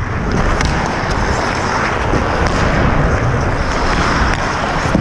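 Ice skate blades scraping and carving on the ice, with wind on a helmet-mounted camera microphone and a few sharp clicks.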